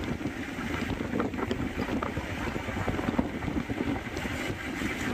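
Wind buffeting the microphone over the steady road and engine rumble of a moving car.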